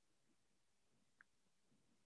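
Near silence, with a single faint tick a little after a second in.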